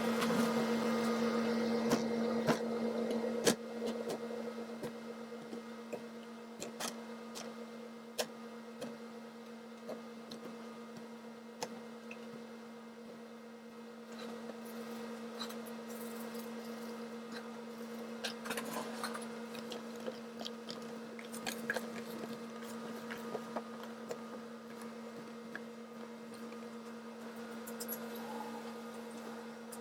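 Knife cutting soft drained feta blocks, with pieces set into plastic containers: scattered soft squishes, taps and clicks. A steady hum runs underneath.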